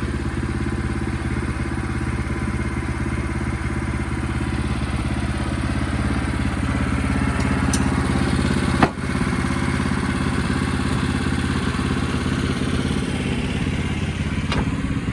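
Sawmill engine running steadily at a constant speed, with one sharp knock about nine seconds in.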